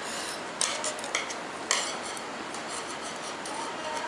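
Metal knitting needles clicking against each other as stitches are worked: a few sharp clicks in the first two seconds, then lighter ticks, over a steady hiss.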